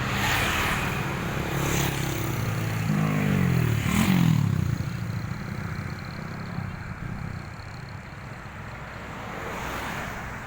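A bus passing close by on the road. Its low tones hold and shift for the first few seconds, then fall in pitch as it goes past, loudest about four seconds in, and it fades into general traffic noise.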